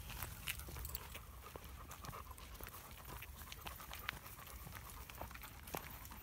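A dog panting steadily as it walks on a leash, with scattered short clicks and steps.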